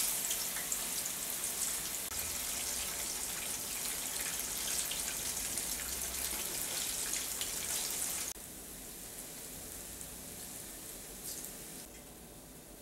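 Ripe plantain rounds frying in hot lard: a steady sizzle with fine crackling. The sizzle drops suddenly in level about eight seconds in, and drops again near the end.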